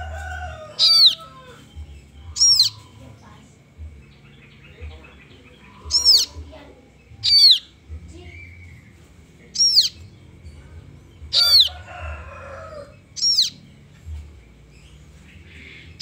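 Kaso-kaso nestlings calling: high-pitched, sharply falling chirps, eight of them, one every one to two seconds.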